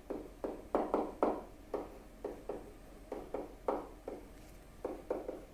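Stylus writing on a tablet: a string of short, irregular scratching strokes and taps as letters are handwritten.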